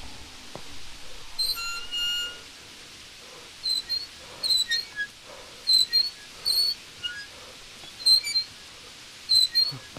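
Short, high-pitched squeaks, mostly in quick pairs, repeating every second or so, with one longer held squeak about two seconds in, over a faint hiss.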